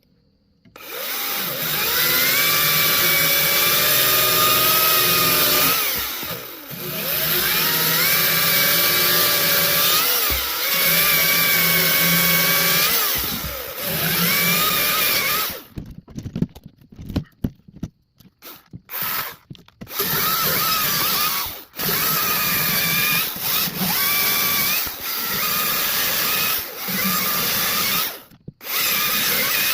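DeWalt 60 V top-handle battery chainsaw running and cutting through logs, on a battery down to its last bar. Its motor whine dips in pitch each time the chain bogs down in the wood. In the second half the saw comes in short bursts with brief stops between.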